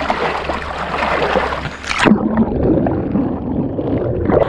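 Water rushing and splashing against a boat's hull around a juvenile black marlin held by the bill at the side. About two seconds in the sound turns suddenly muffled and dull, as if heard from just under the surface, and clears again near the end.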